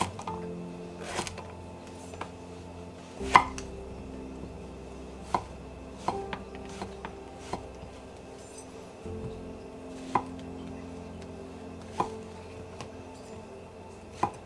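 Kitchen knife slicing a king oyster mushroom on a wooden cutting board: single sharp knocks as the blade meets the board, unevenly spaced a second or two apart, with one louder knock a few seconds in.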